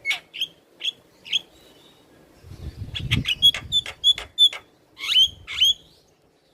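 Javan myna singing: loud, sharp, short whistled notes, a few near the start, then a fast run of them about halfway through, ending with two upward-sweeping calls.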